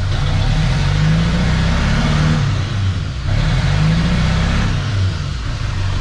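2002 LB7 Duramax 6.6-litre V8 turbo-diesel revved twice with the pedal floored, the engine note climbing slowly and dropping back each time. It is missing and pretty laggy to rev: an injector misfire from corroded, dry-rotted injector harness wires.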